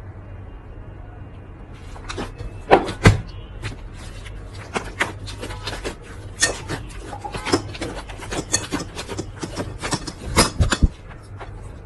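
Slime being handled, giving many irregular sharp clicks and pops that begin about two seconds in. A steady low hum runs underneath.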